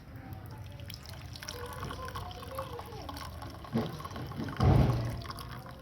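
Hot kadha being poured from the pan through a strainer into a glass, trickling and dripping. A sharp knock about four and a half seconds in is the loudest sound, with a smaller one just before it.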